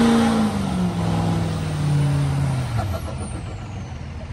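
Lifted GMC Sierra Denali HD's Duramax turbo-diesel V8 at high revs in a one-wheel burnout, tyres spinning in a cloud of smoke. The engine note holds high briefly, then falls steadily as the revs come down, and the sound fades toward the end.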